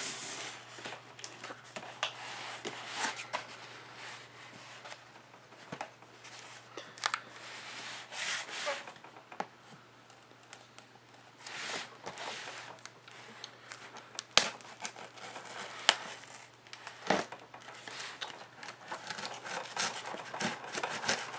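Cardboard box being pulled and torn at by hand, with irregular tearing, rubbing and crinkling rasps and a few sharp clicks; the box is hard to open.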